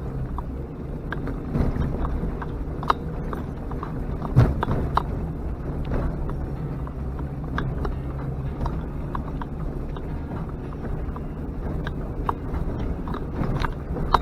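Off-road vehicle engine running with a steady low drone, with frequent knocks and rattles over rough ground; the loudest knock comes about four and a half seconds in.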